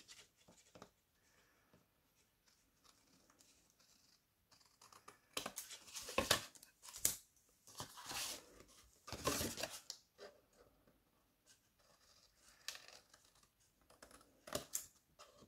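Scissors snipping through paper, trimming the edge of glued-on patterned paper. A handful of separate cuts, most bunched together in the middle, with two more near the end.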